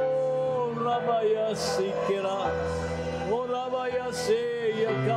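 Live worship music: a singer holds long notes that slide into pitch, over a steady low bass accompaniment.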